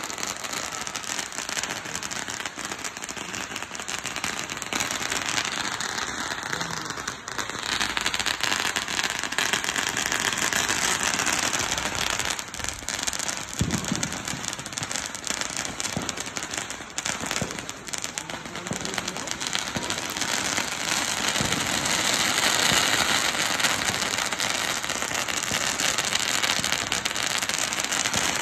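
Fireworks crackling continuously, dense like rain, with a few sharper bangs standing out.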